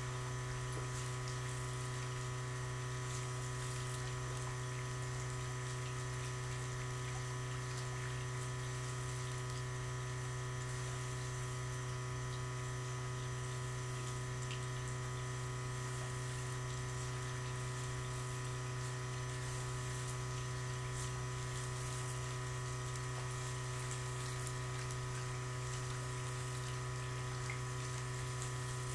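An electric motor running with a steady hum, a strong low drone and several fixed higher tones held unchanged throughout, over a faint wash of water.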